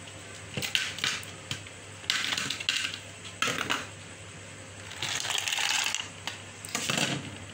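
Ice cubes dropped in several batches into a blender jar of milk, clattering against the jar and splashing in.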